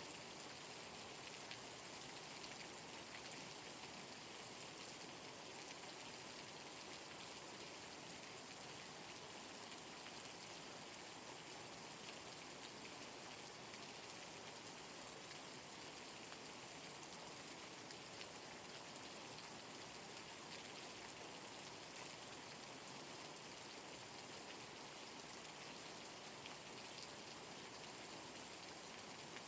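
Steady rain falling: an even hiss of many drops, unchanging throughout, with no thunder.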